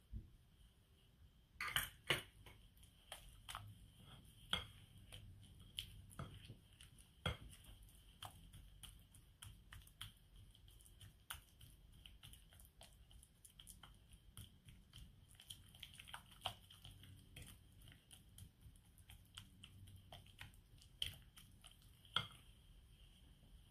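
Mixing utensils tapping and scraping against a glass mixing bowl as butter is mashed into banana, in irregular light clicks, the loudest about two seconds in and near the end.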